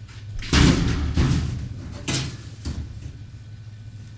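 A few thuds and knocks: the loudest about half a second in, a sharper one near two seconds and a weaker one shortly after, over a steady low hum.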